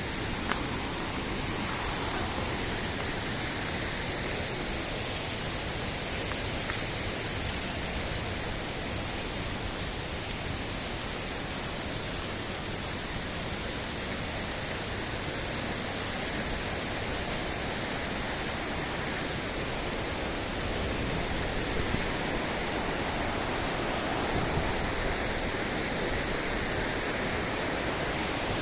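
Steady rush of a mountain river flowing over rocks.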